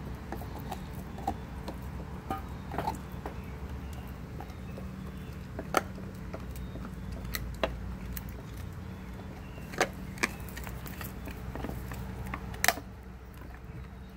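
German Shepherd licking and chewing raw meat and bone, with scattered sharp crunches, the loudest about twelve seconds in.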